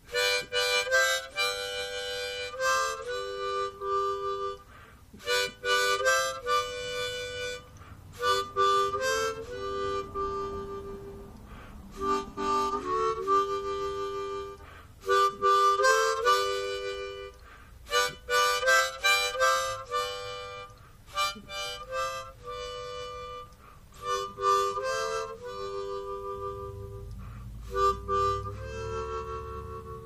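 Harmonica music: a tune played in short phrases of held notes, with brief pauses between them.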